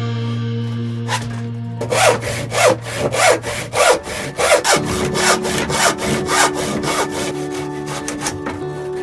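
Hand saw cutting a wooden rail with quick back-and-forth strokes, about three a second, starting about two seconds in. Steady background music plays throughout.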